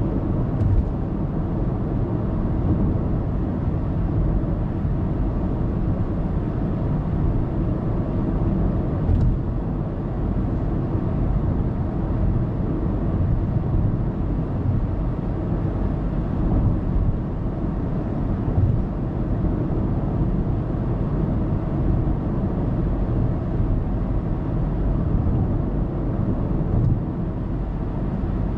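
Steady road and tyre noise with a low engine hum from a car cruising on an expressway, heard through a dashcam inside the car.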